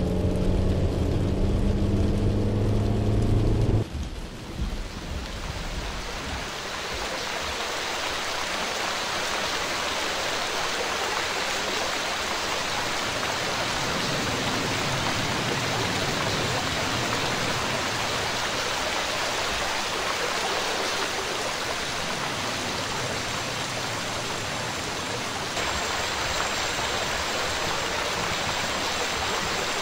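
A car's engine and road drone inside the cabin on a wet dirt road for about the first four seconds, cutting off abruptly. Then steady rain falls on rainforest foliage and keeps on to the end.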